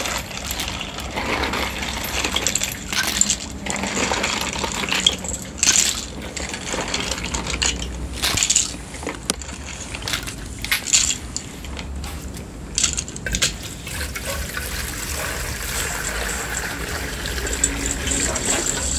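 Hard harp snail shells clattering against each other and a plastic colander as they are lifted out of water and dropped in, with dripping and splashing, in irregular knocks. Near the end, water pouring steadily into a metal wok.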